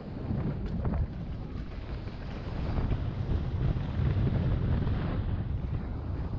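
Wind buffeting a helmet-mounted camera's microphone as a Specialized Turbo Levo Comp e-mountain bike descends dirt singletrack, with a low rumble of tyres over the trail and scattered knocks and rattles from bumps.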